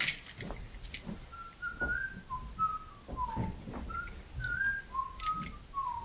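A person whistling a quiet tune of short, quick notes that step up and down, starting about a second in, with faint knocks and room noise underneath.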